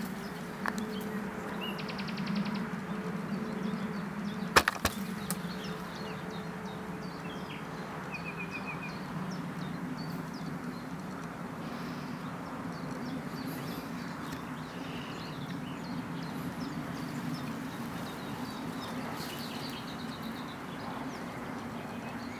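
Outdoor lakeside ambience: a steady low hum with scattered short bird chirps over it, and one sharp knock about four and a half seconds in.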